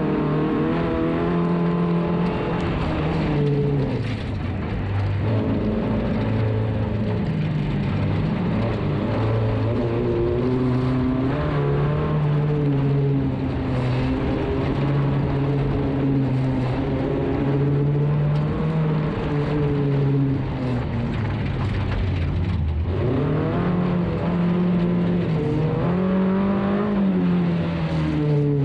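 Race car engine heard from onboard, its revs rising and falling again and again as the driver accelerates and lifts, over a steady rumble of road and tyre noise. About 22 seconds in the revs drop low, then climb sharply again.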